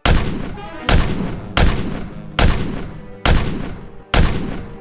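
A steady series of heavy booming hits, a little more than one a second, each ringing out before the next.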